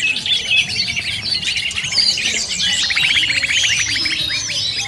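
Many small birds chirping and calling at once in a dense, overlapping chatter, with a rapid trill about halfway through. This is a 'noisy birds' lure recording mixed with greater green leafbird calls, the kind of excited mobbing chorus played to draw wild birds in.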